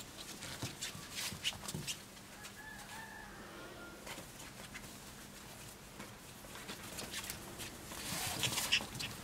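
Four-week-old Pembroke Welsh Corgi puppies scuffling and pattering about on a cloth backdrop, with light scattered clicks and rustles. A faint, thin puppy whine comes about three seconds in, and a louder rustle of movement near the end.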